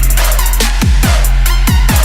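Electronic dance music with a heavy bass line, drum and bass or dubstep style, with falling bass-drum kicks about twice a second.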